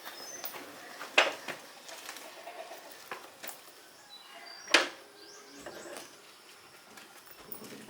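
Birds chirping in short high notes, with two sharp knocks about three and a half seconds apart that are louder than the birds.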